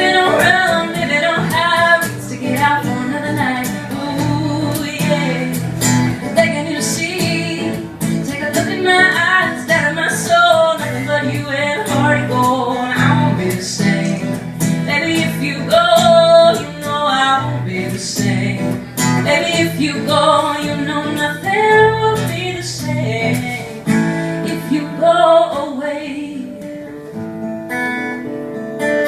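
Live song: a woman singing over a strummed acoustic guitar. The voice falls away near the end, leaving the guitar alone.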